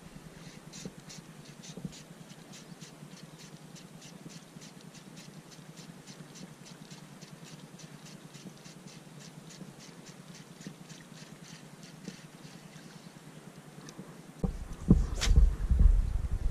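Fishing reel ticking evenly, about four to five ticks a second, as it is wound, over a faint steady low hum. Near the end a loud low rumble starts, with one sharp knock.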